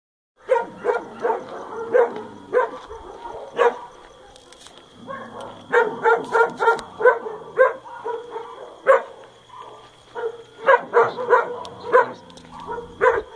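A dog barking over and over in quick runs of short barks, with a lull of a second or two near the middle.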